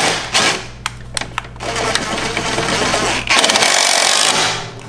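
Cordless impact driver spinning nuts down onto the studs of a Volvo S60's front strut top mount, then hammering hard for about a second near the end as the bearing plate draws the strut up tight into the strut tower.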